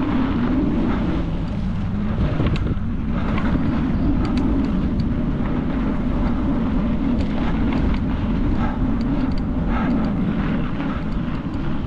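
Motocross motorcycle engines running on a dirt track: a steady engine drone that wavers up and down in pitch, with scattered sharp ticks over it.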